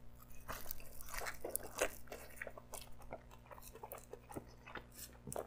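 A person chewing a mouthful of pepperoni pizza up close, with irregular wet mouth clicks and soft crunches.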